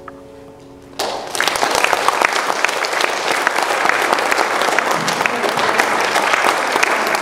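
A grand piano's last chord fading, then about a second in the audience breaks into applause that continues.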